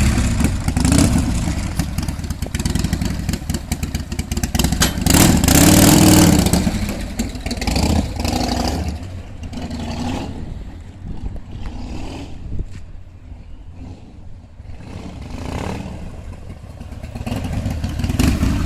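Harley-Davidson Sportster 1200's air-cooled V-twin idling with a low rumble and being revved in blips, the biggest rev about six seconds in and smaller ones after. It runs without the exhaust's dB killer baffles, so the exhaust sound is unmuffled.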